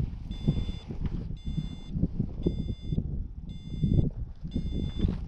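Gusty wind buffeting the microphone, with a flight variometer beeping about once a second, its climb tone set off by the wind's pressure changes. The wind is the loudest sound.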